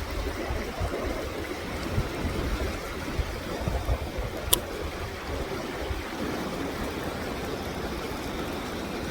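Steady rush of river water, with a low rumble underneath and a single sharp click about four and a half seconds in.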